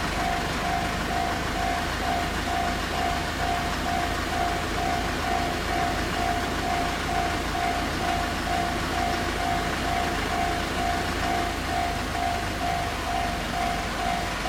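Japanese level-crossing warning bell ringing, a single high ding repeated evenly about two and a half times a second, over a steady rushing noise.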